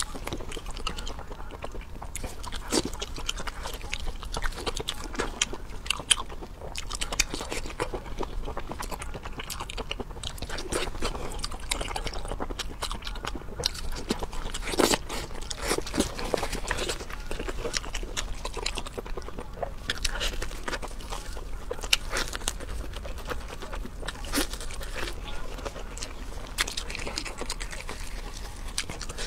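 A person chewing and biting spicy sauced octopus close to the microphone, with many short, irregular mouth clicks and smacks.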